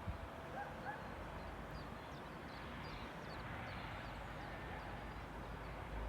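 A few faint, short bird chirps over a steady background hiss.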